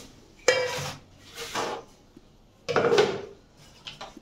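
Pots and kitchen utensils being handled: a few separate sharp knocks and clinks with a short metallic ring, the loudest about three seconds in.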